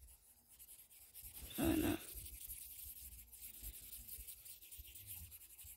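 Faint rubbing and scratching of quick drawing strokes on a tablet's touchscreen, a darker colour being scribbled roughly over the drawing.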